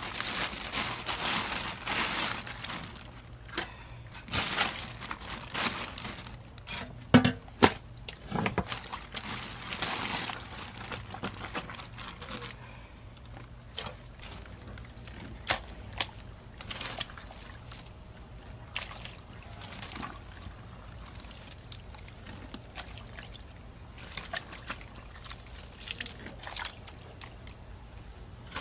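Gloved hands working wet kimchi in a plastic bag: the plastic crinkling and the cabbage squelching in its brine, with liquid pouring and dripping as it is scooped out with a steel bowl. A few sharp knocks come about seven and eight seconds in.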